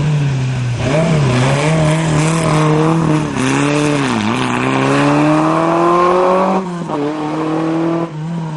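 Historic rally car engine revving hard up through the gears, its pitch dipping briefly at each shift. A long climb in revs about halfway through ends when the driver lifts off sharply near the end.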